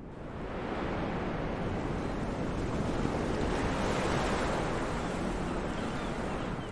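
Ocean surf: the broad rush of a wave that builds, holds, and fades away near the end.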